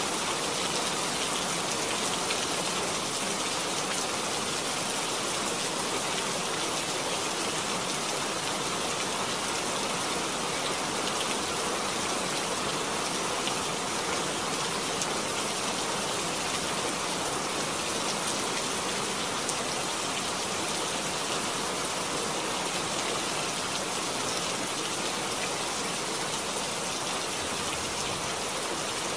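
Steady rain falling, an even hiss with faint individual drop ticks scattered through it.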